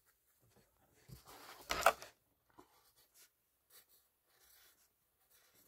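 Faint rustling and handling noise from a phone held close against clothing and bedding, with one louder scuffing rustle about two seconds in.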